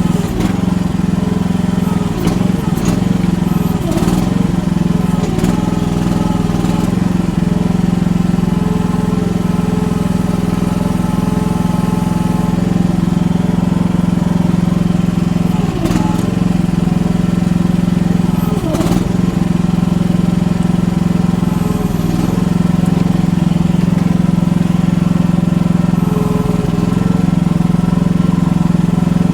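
Mini excavator's engine running steadily under load as the machine tries to climb a soft, steep bank, with a few short knocks from the machine about halfway through.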